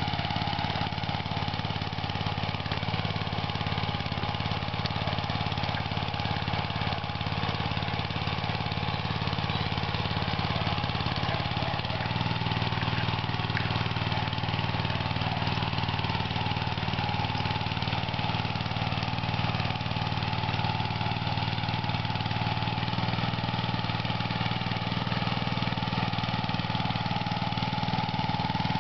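Small walk-behind hand tractor cultivator (rotary tiller) running steadily while it tills soil. The engine note shifts slightly about twelve seconds in.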